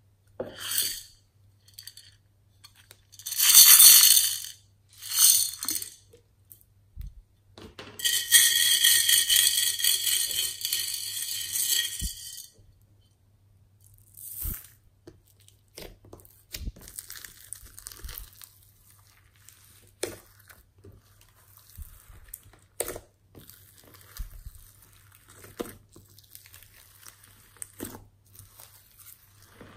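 Small beads and glitter poured and shaken from a plastic cup onto slime in a glass dish: several short rattling bursts, then a longer steady rattle that stops about twelve seconds in. After that, quieter squishing, crackling and small pops as hands press and fold the slime.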